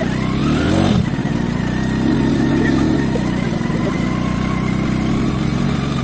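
Scooter engine running under a rider on a rough road, picking up pitch as it speeds up in the first second, then running steadily.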